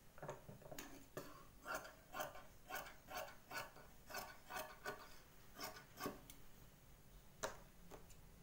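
Tailoring scissors snipping through blouse cloth in a run of quick cuts, about two a second, with a short pause and one last snip near the end.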